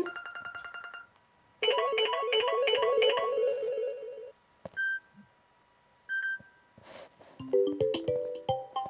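Mobile phone ringtones played one after another: a short fast pulsing tone, then a loud warbling electronic trill, two single short beeps, and near the end a stepping melodic ringtone tune.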